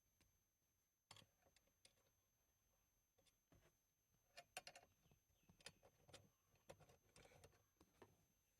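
Faint, irregular clicks and light knocks of hands and tools at work on a car's center console as it is reassembled.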